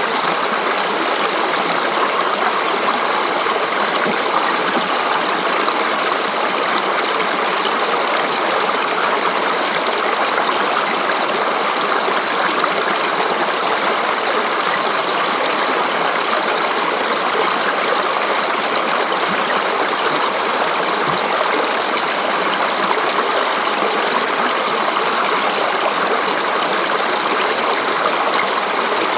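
Fast, shallow mountain stream rushing and splashing over rocks and small drops between boulders, heard close up. It is a steady, even rush of water throughout.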